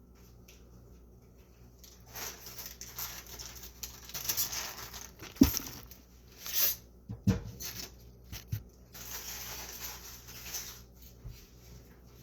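Stretches of rustling, crinkling noise with a few sharp knocks, the loudest about halfway through.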